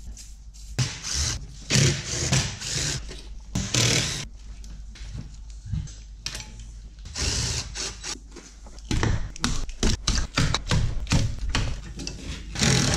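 Hand tools and loose metal car parts clinking, clicking and knocking irregularly as brackets and fittings are unbolted and pulled from an engine bay.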